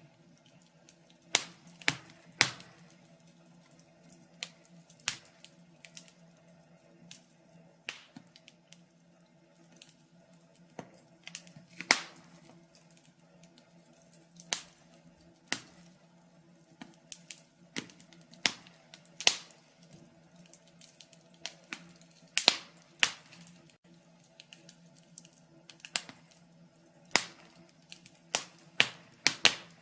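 Log fire crackling: irregular sharp pops and snaps from the burning wood, often in quick clusters of two or three, over a faint steady low hum.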